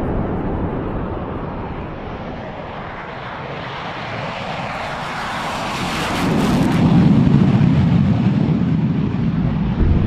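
Fighter jet flying past: engine noise whose hiss builds through the middle, then gives way to a louder, deep rumble about six seconds in.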